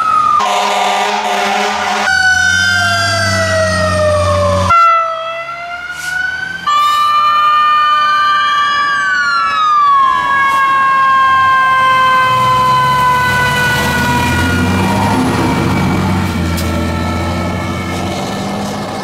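A run of spliced clips of emergency vehicles passing with sirens sounding: electronic siren tones gliding up and down, an air horn blast near the start and truck engines underneath. The clips cut abruptly from one to the next several times.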